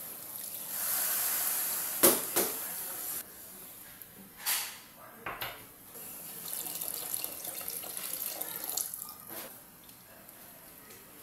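Water being poured into a pot of frying tomato stew base, with a steady hiss and splash for a couple of seconds. A few sharp knocks against the pot come in the first half. Later the stew crackles and bubbles as it heats in the added water.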